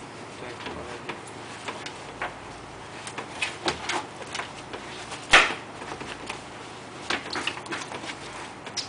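Scattered light clicks and taps as a jacket is handled and rolled up on a tabletop, with one louder knock about five seconds in.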